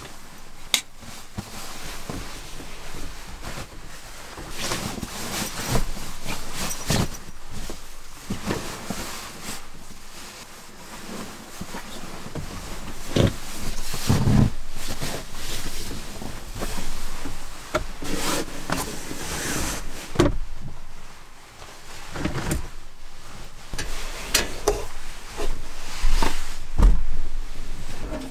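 Irregular rustling, clicks and dull knocks of objects being handled at close range, with heavier clunks about halfway through.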